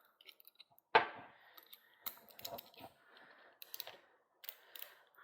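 Small metal clicks and light rattles as a hex key and bike shifter parts are worked by hand. One sharp click comes about a second in.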